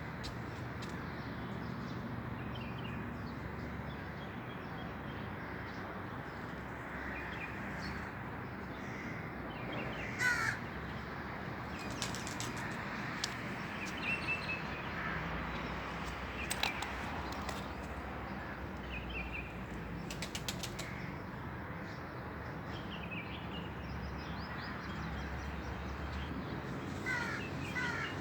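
Birds calling in scattered bursts of short, repeated notes, with a quick run of calls near the end, over a steady low background hum.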